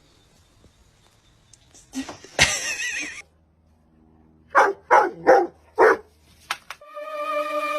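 A dog barking: one wavering, drawn-out call, then about a second later four quick barks in a row.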